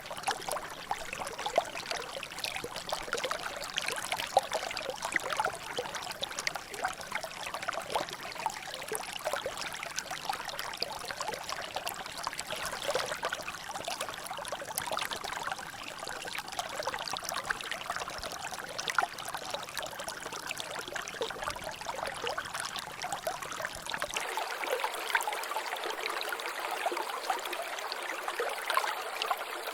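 Water trickling and dripping in a small natural drainage channel, a steady run of many small splashes and drops. About 24 seconds in, the low rumble beneath it drops away suddenly, leaving only the brighter trickle.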